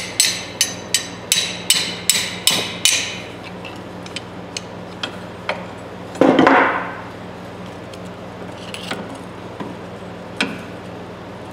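Small hammer tapping on the pivot pin of old Eagle Claw pliers, about three light metallic taps a second for the first three seconds; the pin is not driving out. About six seconds in comes a louder clunk and scrape of the pliers on the iron vise, then a few light clicks of a screwdriver against the pliers.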